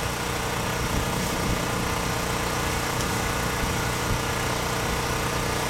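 Steady hum of a running engine or motor, even in pitch and level.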